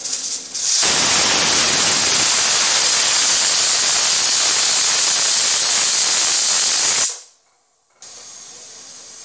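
Stovetop pressure cooker's first whistle: the weighted valve lifts and steam rushes out in a loud, steady hiss for about six seconds, starting about a second in and stopping abruptly. It signals that the cooker has come up to full pressure.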